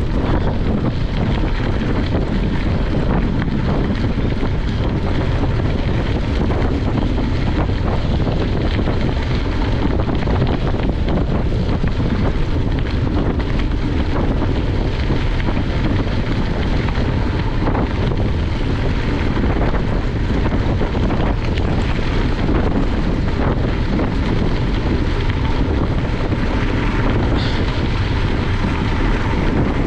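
Steady wind buffeting the microphone of a camera on a bicycle moving at speed.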